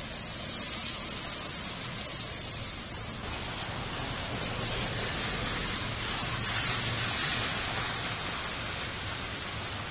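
Steady hiss of heavy rain, swelling louder from about three seconds in, then easing off.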